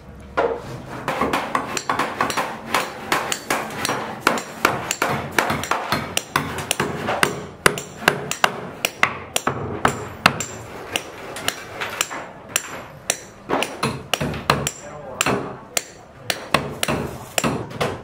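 Hand hammer striking wooden concrete formwork boards: a steady run of sharp blows, two or three a second, with short pauses now and then.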